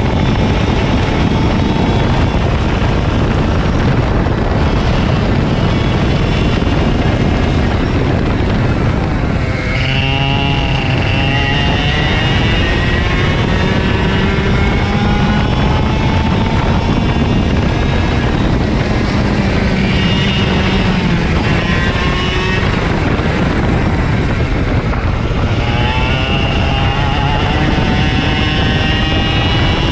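KA100 two-stroke kart engine running hard at high revs. Its pitch dips sharply and climbs back about ten seconds in and again around twenty-five seconds, as it comes off and back onto the throttle for corners.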